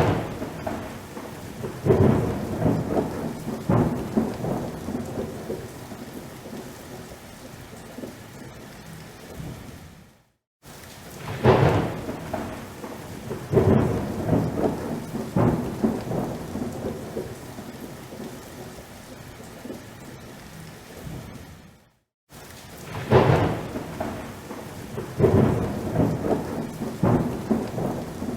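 Thunderstorm: steady rain with repeated rumbling thunderclaps, several loud peaks a couple of seconds apart. The pattern repeats about every 12 seconds and cuts briefly to silence twice, about 10 and 22 seconds in.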